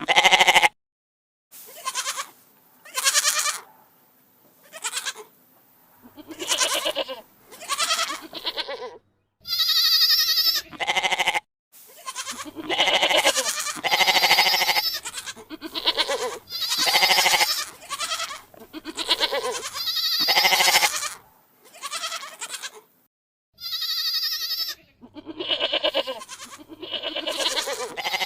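Goats bleating, one call after another with short silent gaps between them, about fifteen calls in all. The calls vary in length. A couple, about ten seconds in and again near the end, are higher and thinner than the rest.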